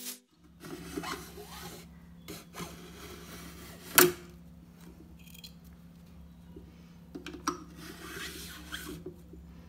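Hook-blade acrylic cutter scraping repeatedly along a plexiglass sheet, rasping as it gouges a groove and throws off curls of plastic. A single sharp knock about four seconds in is the loudest sound.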